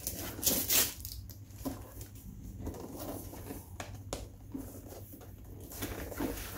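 Cardboard box being handled and opened: scattered scrapes, rustles and light knocks of the flaps and lid, loudest in the first second.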